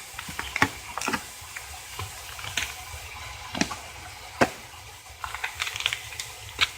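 Water running into the tub of a Whirlpool top-loading washer as it fills on the hot, large-load setting: a steady rush, with scattered sharp clicks and rustles throughout.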